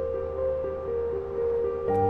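Soft background drama score: slow, gentle held notes stepping through a melody over a sustained low bass, shifting to a new chord near the end.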